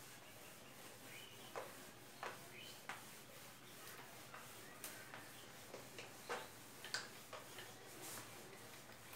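Marker writing being wiped off a whiteboard by hand, faint short rubbing strokes and squeaks at an uneven pace.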